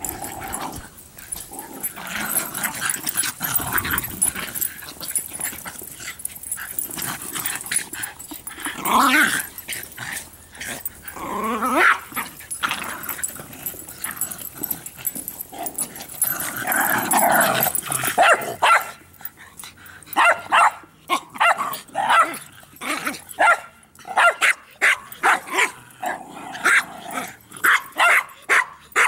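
Small terriers playing rough over a ball: growling for much of the first half, then sharp barks in quick succession, about two a second.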